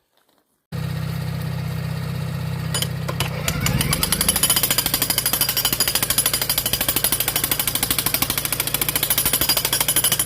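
Jackhammer breaking granite bedrock: the machine starts running just under a second in, and from about three and a half seconds a fast, even train of hammer blows builds up and keeps going, loud.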